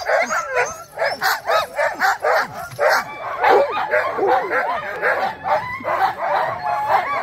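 A pack of harnessed sled huskies yipping and barking together, many short rising-and-falling yelps overlapping several times a second without a break.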